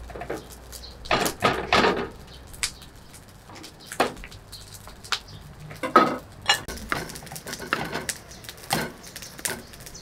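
Small knife paring the hard skin off a pumpkin against a wooden chopping board: irregular scrapes and light knocks, the loudest about six seconds in.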